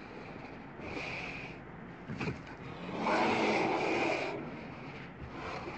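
Recorded polar bear vocalisation: several rough, rasping huffs, the loudest and longest lasting over a second about three seconds in.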